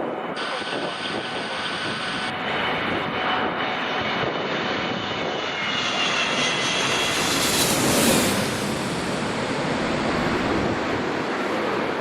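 Jet airliner passing low overhead, its engines' whine and roar building to a peak about eight seconds in, then easing off.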